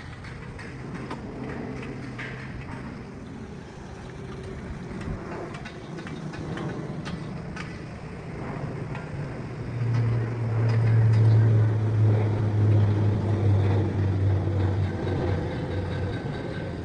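Heavy construction machine engine running with a steady low hum, growing much louder about ten seconds in and easing off near the end, with scattered clanks and knocks over it.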